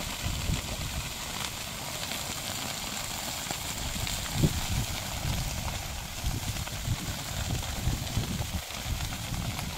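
Grass and brush fire burning, a steady crackling hiss with a louder pop about halfway through.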